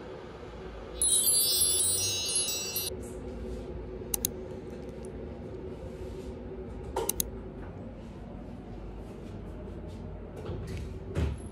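A bright, sparkly chime sound effect lasting about two seconds, starting about a second in, then a low steady room hum with a few short clicks and knocks.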